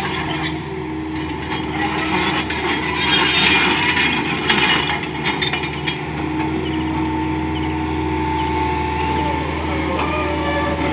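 Tata Hitachi Zaxis 210 crawler excavator's diesel engine running steadily under load, with clanking and scraping of its steel tracks as it crawls up a dirt slope, loudest between about two and five seconds in.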